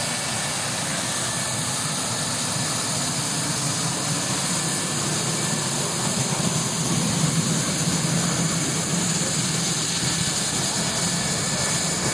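German Air Force F-4F Phantom II's twin J79 turbojets running at taxi power as the jet rolls past: a steady jet rumble and hiss that grows a little louder about halfway through.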